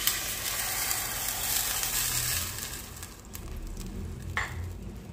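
Water poured into a hot stainless steel pan of browning chicken balls and onions in oil, sizzling and hissing at once; the sizzle is loudest for about the first two and a half seconds, then dies down to a quieter simmer.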